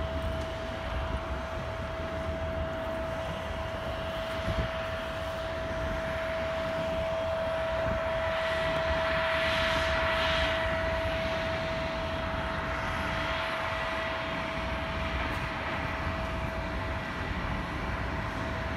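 Jet airliner engine noise: a steady high whine over a low rumble and hiss, swelling louder and hissier around the middle before easing back.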